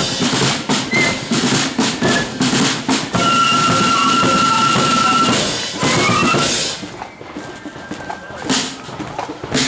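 Blood-and-thunder flute band with bass and snare drums playing the close of a tune: steady drumming, then a long drum roll under a held flute note, a few last notes, and the music drops away about seven seconds in, leaving only scattered drum taps.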